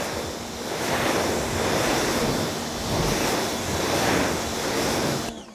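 Pressure washer spraying a jet of water onto a car's bonnet: a steady, even hiss of spray on the paint that cuts off shortly before the end.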